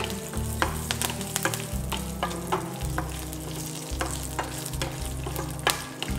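A tempering of mustard seeds, urad dal, dried red chillies and curry leaves sizzling in hot groundnut oil in a steel pan, with many scattered sharp pops. A wooden spatula stirs it.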